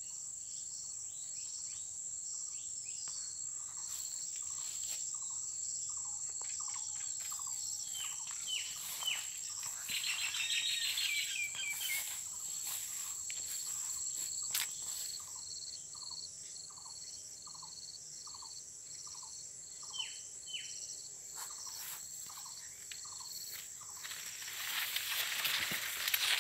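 Steady high-pitched insect drone with birds calling over it: a few quick falling whistles and a short note repeated about every half second. Near the end there is a brief rustle of movement.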